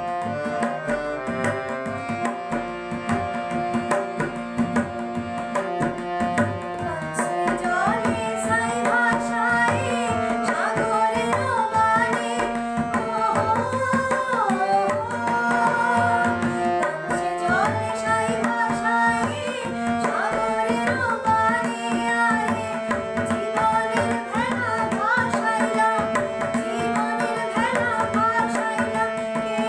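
A tabla playing a steady rhythm under a harmonium's held notes; about seven seconds in, a young girl's voice starts singing a melody over them.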